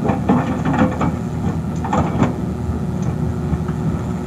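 Excavator's diesel engine running steadily at a low rumble, with a few short knocks about half a second in and again about two seconds in.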